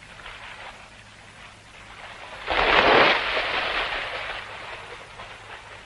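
A swimmer dives into a pool: a sudden loud splash about two and a half seconds in, fading into the churning splashes of swimming strokes.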